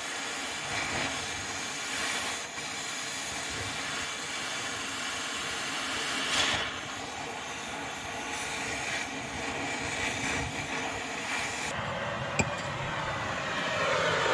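Oxy-fuel cutting torch hissing steadily as it cuts a notch into a steel bar on a crawler loader's idler, with a short louder burst about six seconds in and a sharp click near the end.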